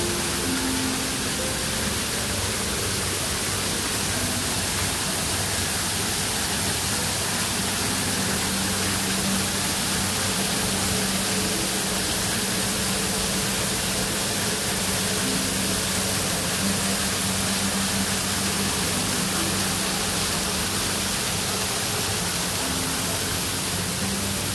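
Steady, even hiss of water: fine mist spraying from garden misting nozzles and water falling over a small rock waterfall, with a faint low hum underneath.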